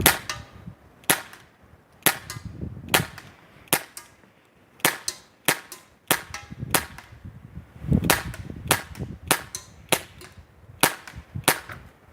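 Crosman C11 CO2 BB pistol fired rapidly, about sixteen sharp pops at irregular intervals of roughly half a second to a second, with wind rumbling on the microphone.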